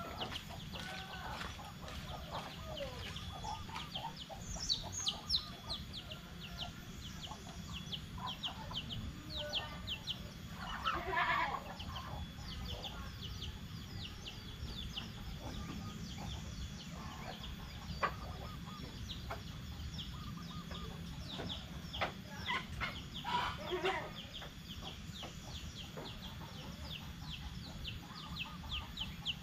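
Free-range village chickens clucking and calling, with many short high cheeps throughout and a few louder calls about eleven seconds in and again around twenty-three seconds.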